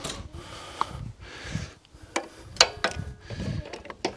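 A few separate sharp metallic clicks and knocks over low rustling, from a socket and hand tools being handled at a lawnmower engine's spark plug.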